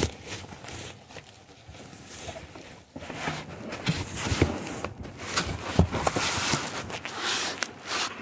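Plastic bubble wrap being handled and pulled away, rustling and crinkling with many small crackles. It grows louder and busier about three seconds in.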